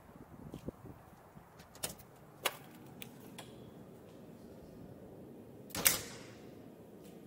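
A few light clicks, then a metal-framed glass door swinging shut with a loud clunk near the end, ringing briefly.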